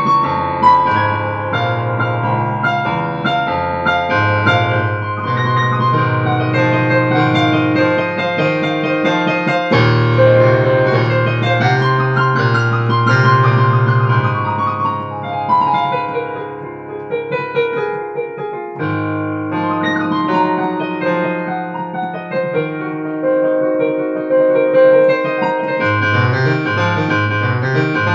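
Piano music: a flowing melody over sustained low chords, with new bass chords struck about ten, nineteen and twenty-six seconds in.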